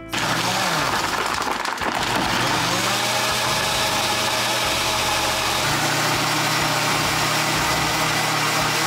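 Blender running on a smoothie with ice cubes in it, a loud steady whir. Its pitch wavers in the first few seconds and steadies a little past halfway.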